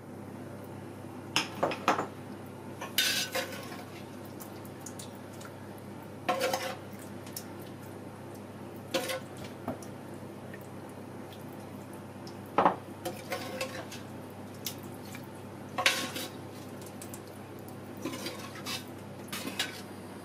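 Metal ladle clinking and scraping against a large aluminium stockpot and small glass jars while duck meat in fat is ladled into the jars. The clinks come in short clusters every couple of seconds.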